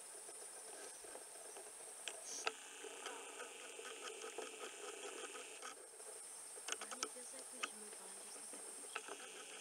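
Steady high-pitched insect chirring. A second, lower insect note comes in for a couple of seconds mid-way and again near the end. A few short sharp clicks fall in the middle.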